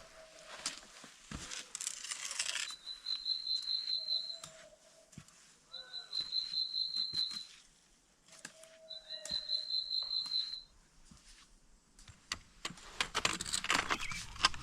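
A songbird singing the same short rapid trill three times, each lasting about a second and a half. Footsteps crunch on the trail at the start and again near the end.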